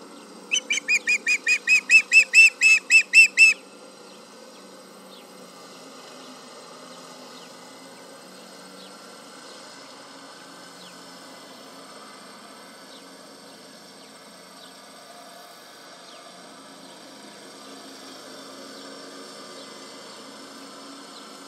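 Osprey calling: a rapid series of about fifteen sharp, whistled chirps over some three seconds, growing louder, starting about half a second in. Afterwards only a faint steady background hiss remains.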